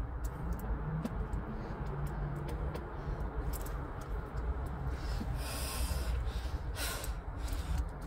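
Small clicks and rustles of plastic wiring connectors being handled, over a steady low rumble, with a couple of short breaths near the end.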